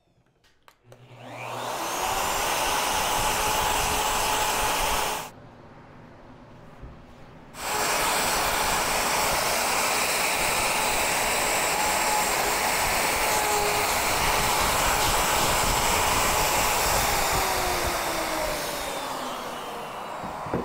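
Bosch plunge router spinning up and routing a bench dog hole through a template jig into a solid-core door: a steady motor whine over the rush of the vacuum drawing dust from the router. The sound drops away for about two seconds around five seconds in, comes back, and winds down with a falling whine near the end.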